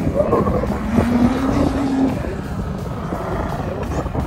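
Dune buggy engine running as it drives across the sand, a droning note that climbs slightly for about a second and then eases off, over a steady low rumble.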